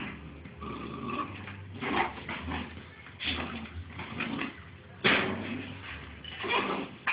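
Two bull terrier puppies play-fighting and tugging at a toy: scuffling and short dog noises in irregular bursts, the loudest about five seconds in.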